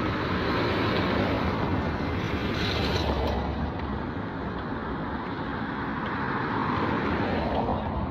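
Road traffic: a vehicle passes close by with a low rumble that fades after about three seconds, leaving steady traffic noise.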